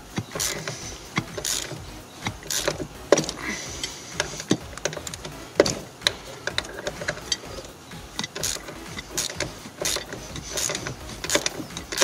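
Hand ratchet clicking in short, irregular strokes as it works a very tight seat belt anchor bolt, one held by thread locker.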